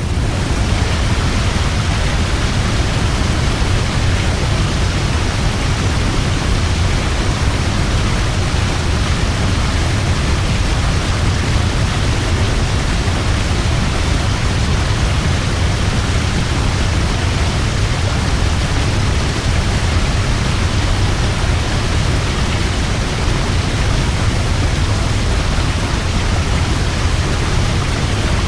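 Large waterfall: a steady, unbroken rush of falling water, heaviest in the low end.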